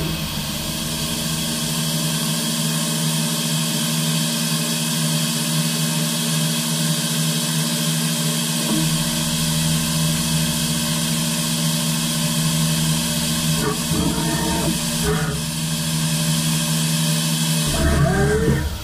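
DMG Mori NTX1000 CNC turn-mill machine running inside its enclosure: a steady machine hum with a high hiss, and a deeper rumble that joins about halfway through. Short whirs of axis movement come about 14 seconds in and again near the end.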